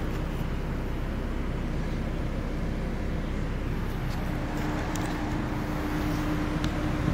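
Steady low engine rumble with a constant hum, unchanging.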